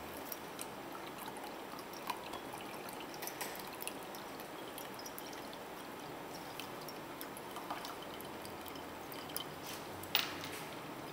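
A thin stream of liquid pouring from one glass beaker into another, trickling with faint drips and ticks. There is one sharper click about ten seconds in.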